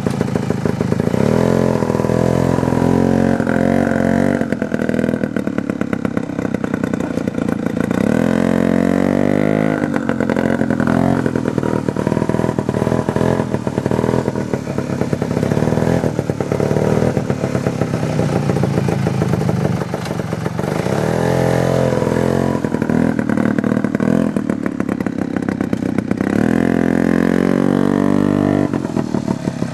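1969 OMC Snow Cruiser 209E snowmobile's two-stroke engine running under way, revving up and easing off again and again, its pitch rising and falling.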